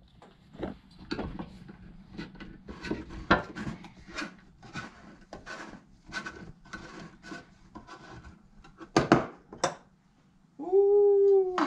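A screwdriver scraping and rubbing around the rim of a metal paint can as the lid is pried off, with a couple of sharper metallic clicks about nine seconds in. Near the end a loud, drawn-out pitched sound starts.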